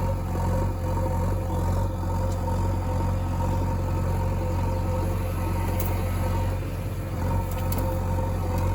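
Engine running steadily at idle: an even low hum with a few held tones above it, and a couple of faint clicks near the end.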